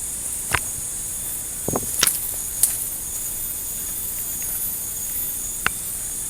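Steady high-pitched drone of jungle insects, with a few short sharp clicks or snaps: one about half a second in, a cluster around two seconds, and one near the end.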